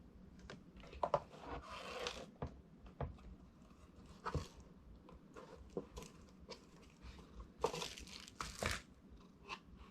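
Crinkling and crunching of plastic packaging being handled and pulled open, with scattered light clicks and knocks of plastic parts, and a louder stretch of crinkling near the end.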